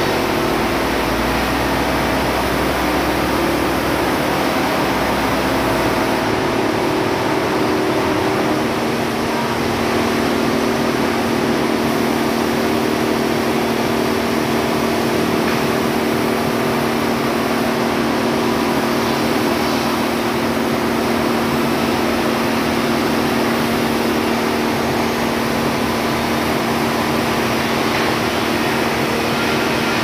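Steady, loud machine engine running, its pitch settling onto one even tone about eight seconds in. A deep engine rumble from a forklift close by sounds under it for the first several seconds, then fades as the forklift drives away.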